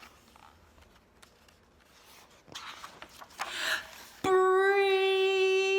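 A woman's voice holds one long, steady sung note that starts suddenly near the end and lasts about two and a half seconds. Before it there are only faint rustles and breaths.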